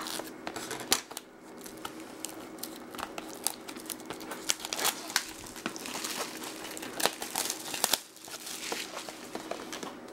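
Plastic shrink wrap crinkling and tearing as it is pulled off a sealed trading card box, with many irregular sharp crackles.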